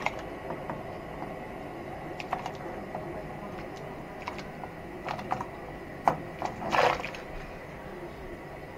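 Diced raw potatoes being pushed off a plate into a pot of hot water: scattered soft plops and splashes with light clicks against the plate, and one longer splash about seven seconds in.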